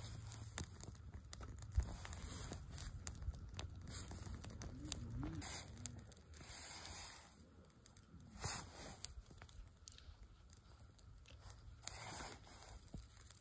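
Small fire of split pine sticks and wet pine needles crackling faintly with scattered sharp pops, one sharper pop about two seconds in, and rustling as the sticks are shifted by hand.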